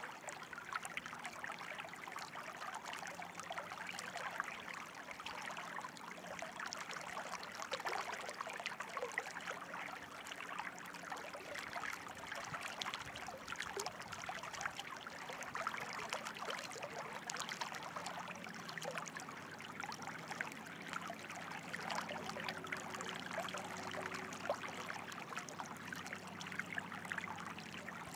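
Running water trickling steadily, like a small stream, with a dense patter of little splashes and no break.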